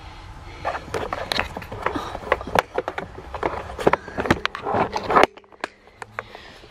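Handling noise of a camera being picked up and carried: irregular knocks, clicks and rubbing against it, which stop abruptly about five seconds in.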